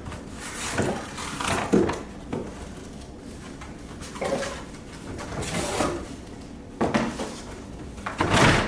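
Cardboard box and packaging being handled: irregular scraping, rustling and knocking as a boxed vacuum cleaner is worked loose and pulled out, with a louder knock near the end.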